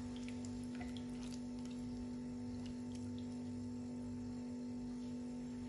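A steady low hum with a few faint ticks and scrapes in the first second or two as a silicone spatula stirs minced meat, vegetables and water in a nonstick pot.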